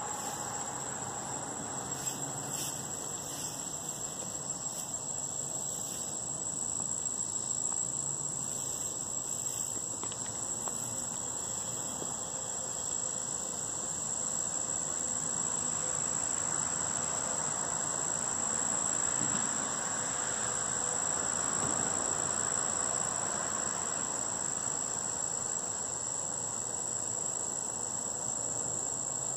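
Insects singing: one continuous, steady, high-pitched trill, over a soft background hiss that swells slightly in the middle.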